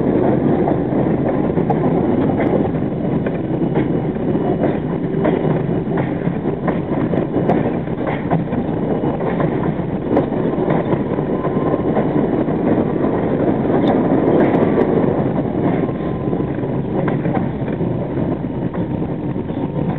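R42 subway train running on elevated track: a steady rumble of wheels on rail with irregular clicks and clanks from joints and track work, and a faint steady whine in the second half as it runs into the station.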